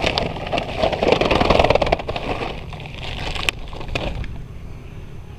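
A plastic sack rustles as it is handled, loudest in the first two seconds, with one sharp click about three and a half seconds in.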